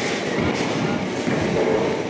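Bowling alley din: balls rumbling down the wooden lanes and pins clattering, one steady rolling rumble throughout.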